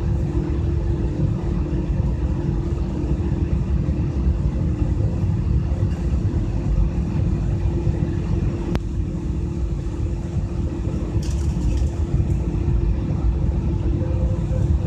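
Steady jet airliner cabin noise: a constant low rumble with an even hum, heard from a passenger seat. A single click comes about nine seconds in, and a short hiss about eleven seconds in.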